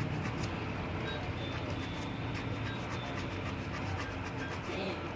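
Repeated rubbing strokes as the magnet core faces of a motor starter's contactor are scrubbed clean of dirt. Dirt on these faces is the cause of the starter's chattering hum.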